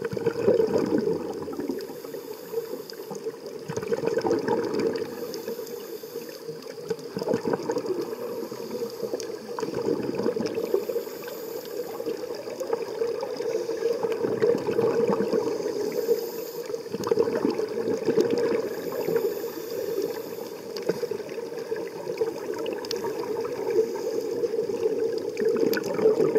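Scuba exhaust bubbles gurgling and rushing underwater, swelling in surges every few seconds with the divers' breaths.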